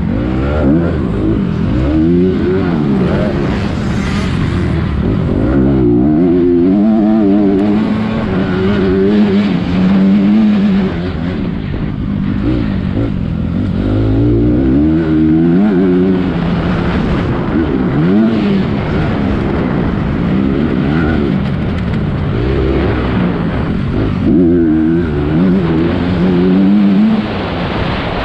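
Motocross bike engine heard onboard while racing, revving hard and easing off over and over, its pitch rising and falling through the gears.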